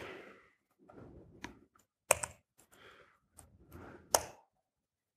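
Laptop keyboard keystrokes: a handful of separate, irregular key clicks, the sharpest about two seconds in and near four seconds in, with soft breathy noise between them.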